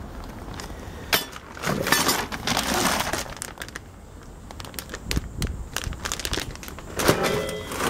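Packaging being handled: crinkling and rustling with scattered clicks and knocks.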